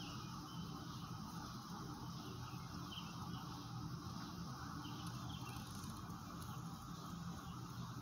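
Quiet outdoor evening ambience: a steady low hum under a soft background hiss, with a few faint short chirps about three and five seconds in.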